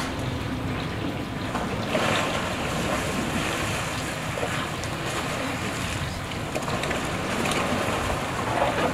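Heavy water splashing and churning as two hippos fight in a river, with louder surges of spray about two seconds in and near the end, over a steady low rumble.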